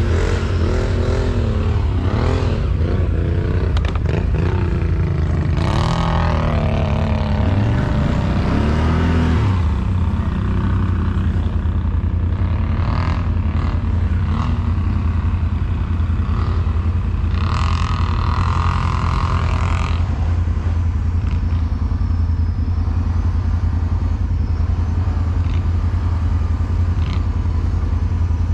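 ATV engine running with a steady low rumble, its revs rising and falling through the first ten seconds, with louder revving flaring briefly about six seconds in and again from about eighteen to twenty seconds in.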